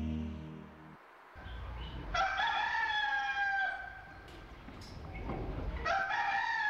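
A rooster crowing twice, each crow a long call of about a second and a half that falls slightly in pitch at the end. Background music fades out in the first second.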